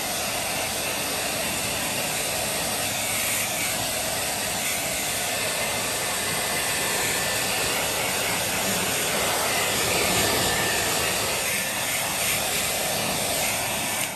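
Hand-held hair dryer running steadily, blowing air over a wet dog's coat. The rushing noise cuts off at the very end.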